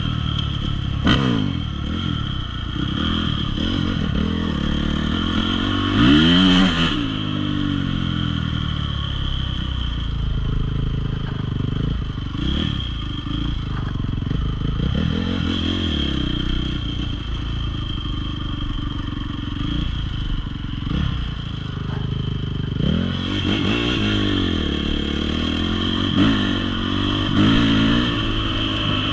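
Enduro dirt bike engine being ridden off-road, its pitch repeatedly rising and falling as the throttle is opened and closed, with the strongest rev about six seconds in. A few sharp knocks and some clatter come through.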